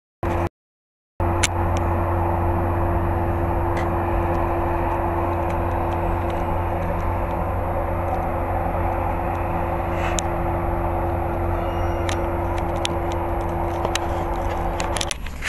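Passenger train passing close by the platform: a steady rumble of wheels on rail with a constant hum, which falls away about half a second before the end. The sound is cut out for about the first second, apart from a brief blip.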